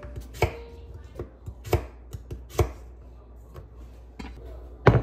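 Chef's knife chopping carrots on a bamboo cutting board: several sharp knocks of the blade striking the wood at uneven intervals, the loudest near the end.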